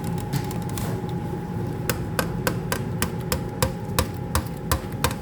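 A run of sharp, regular knocks, about three a second, starting about two seconds in, over a steady background hum.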